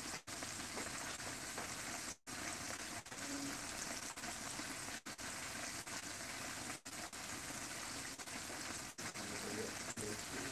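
Breaded chicken pieces frying in hot oil in a small pan, a steady sizzle. The sound cuts out for an instant a few times.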